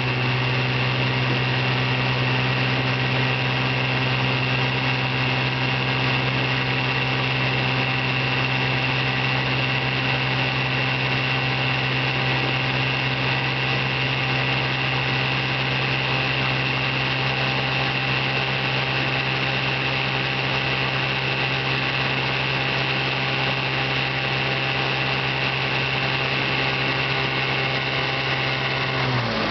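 1959 Evinrude 10 hp twin-cylinder two-stroke outboard motor running steadily under way, nice and quiet and smooth. Near the end its pitch drops as it is throttled back.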